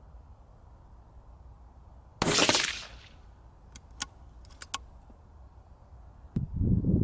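A single suppressed shot from a .17 HMR rifle with a Freyr Devik suppressor about two seconds in, a short sharp report with a brief fading tail. It is followed by a few light metallic clicks, then a low rumbling noise near the end.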